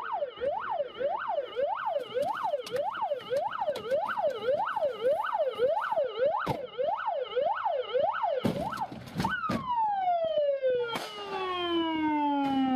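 Police patrol car's siren yelping, its pitch sweeping rapidly up and down about twice a second. A couple of sharp knocks come about eight and a half seconds in, then the siren winds down in one long falling glide.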